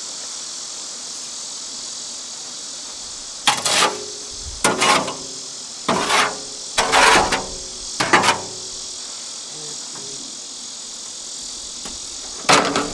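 Wet concrete being tipped and scraped out of a wheelbarrow into a post hole, six short bursts of scraping and clanking from the tub, over a steady high buzz of insects.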